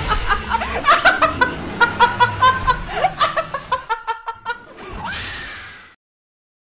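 A woman laughing hard in rapid, pitched bursts. About five seconds in, the laughter trails into a long breathy sound that cuts off suddenly.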